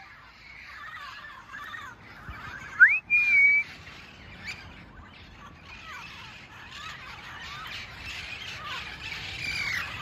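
A flock of wild parrots squawking and chattering as they gather at their roost, with many calls overlapping. About three seconds in comes one loud rising whistle followed by a short held note, and the chatter grows denser near the end.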